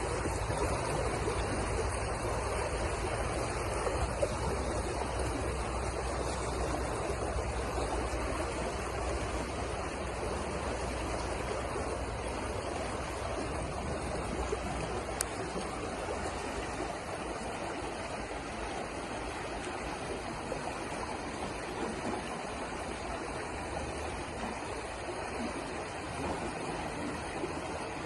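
River water rushing and babbling over rocks in a steady flow, with a low rumble underneath that eases about halfway through.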